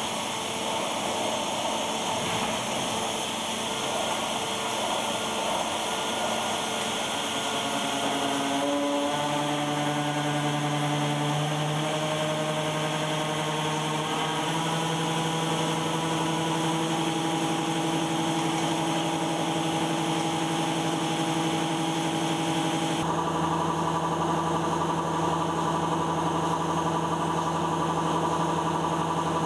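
Makino J3 machining center running while a hob cutter cuts a spline on a steel crankshaft: a steady mechanical whine made of several tones. The tones step up in pitch about a third of the way in, as the spindles come up to speed, then hold steady. The sound changes abruptly about three-quarters of the way through.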